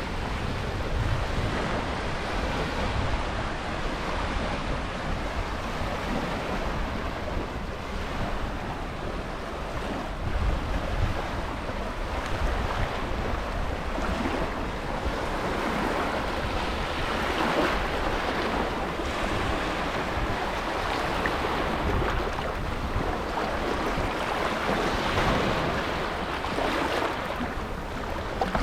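Red Sea waves washing onto a sandy beach: a steady rush of surf that swells and eases every few seconds, with wind rumbling on the microphone.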